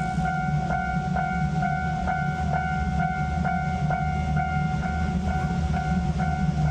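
Japanese railway level-crossing warning bell clanging a little over twice a second, its steady ringing tone struck again with each beat, over the low rumble of a passing train.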